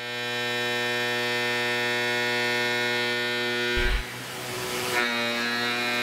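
CNC mill spindle driving a 3/4-inch shear hog end mill through aluminium in an adaptive cut, a steady pitched cutting tone. About four seconds in a short thump and a second of hiss break in, then the tone resumes at a slightly different pitch.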